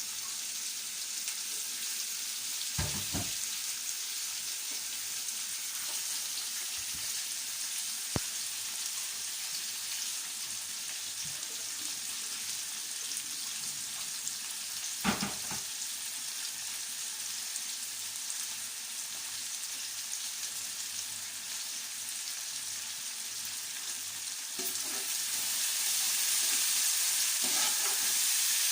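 Onion and garlic sizzling in olive oil in a pan, a steady frying hiss with a couple of short knocks. The sizzle grows louder near the end.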